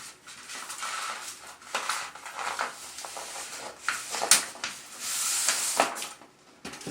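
Backing paper being peeled slowly off a vinyl wall decal: crackling, rustling paper with scattered sharp ticks, and a steadier peeling hiss for about a second past the middle.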